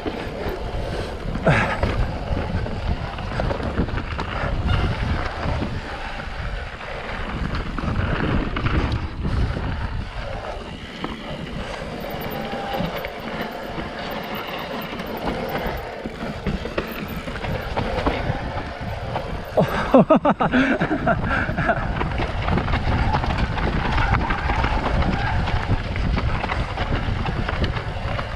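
Mountain bike riding down a steep dirt trail: wind rumbling on the microphone over the steady noise of tyres on dirt, with irregular knocks and rattles from the bike over bumps. About twenty seconds in comes a short pitched sound among a cluster of sharp knocks.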